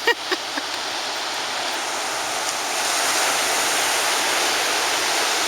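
Ocean surf washing onto the beach: a steady rush that swells louder about halfway through as a wave comes in. A few brief sharp sounds come right at the start.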